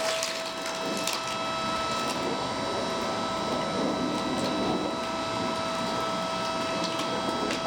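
8-ton hydraulic log splitter running, its pump motor giving a steady whine, with a few sharp cracks of wood, mostly in the first second or so.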